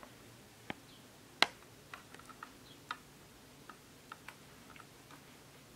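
Faint, irregular small clicks and taps of metal tweezers and a plastic cup knocking against a small acrylic enclosure, the loudest about a second and a half in.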